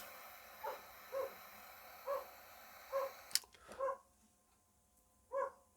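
A gas torch lighter clicks alight and hisses steadily for about three and a half seconds while it heats a glue stick, then clicks off. Short pitched animal yaps sound about six times through it.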